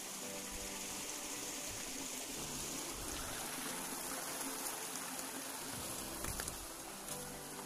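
Shallow rocky stream running steadily, with footsteps and bumps of walking over the rocks.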